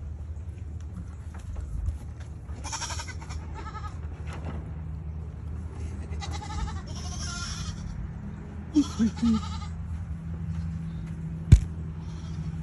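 Goats bleating: several separate calls, each about a second long, with a sharp knock near the end that is the loudest sound.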